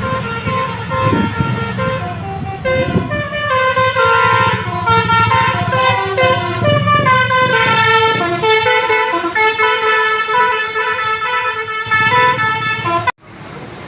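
Bus telolet horn: a set of multi-tone air horns on a bus playing a quick melody of changing notes, with the low rumble of the engine underneath. It cuts off suddenly near the end.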